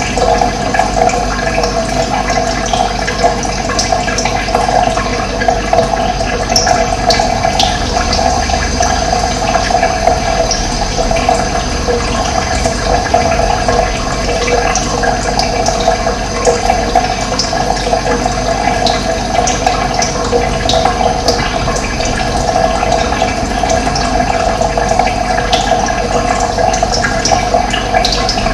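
Steady rush of running water, with brief high bird chirps scattered throughout.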